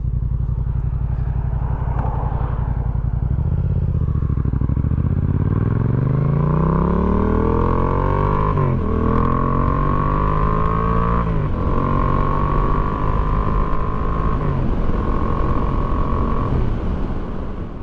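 Yamaha XSR700's parallel-twin engine idling, then pulling away and accelerating with the pitch rising, upshifting about 9 and 11 seconds in, and running steadily at speed before the throttle eases off near the end.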